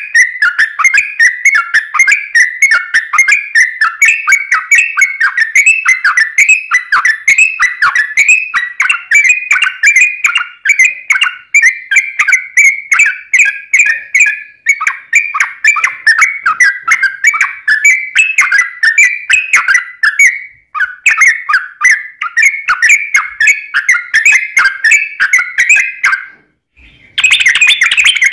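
Yellow-vented bulbul in full song: a long, fast run of repeated whistled phrases, several notes a second. It breaks off briefly near the end and comes back louder.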